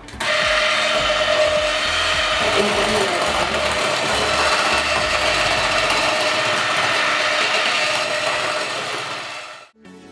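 Electric hand mixer running with its beaters in cookie dough as flour is mixed in. It starts suddenly, runs steadily with a constant whine, and fades out near the end.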